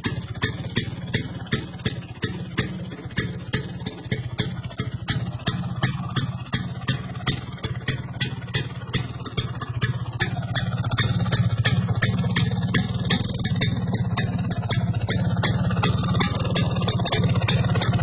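Vespa PX's single-cylinder two-stroke engine idling at a slow, steady idle, a low hum with sharp ticks about three times a second. The hum grows louder about ten seconds in.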